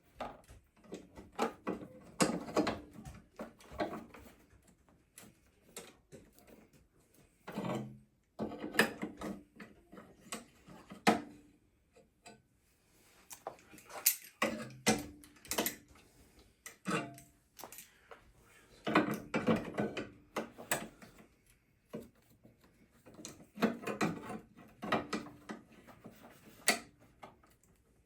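Hand ratchet wrench clicking in short bursts with pauses between, as bolts are worked on a car's front wing.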